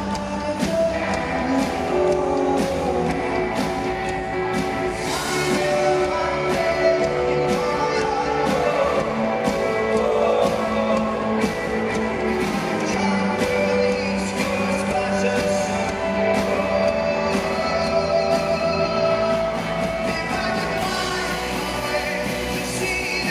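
Live rock band playing a song: a lead vocalist singing over a steady drumbeat and guitars.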